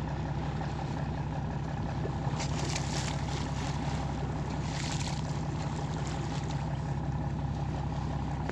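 Boat engine running steadily at a constant drone. Two short hissing rushes of water or air noise come over it, a little over two seconds in and again about five seconds in.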